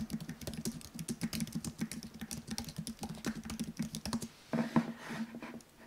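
Typing on the Apple Magic Keyboard of an M1 iMac: quick, irregular key clicks, several a second, with a denser, louder flurry about four and a half seconds in.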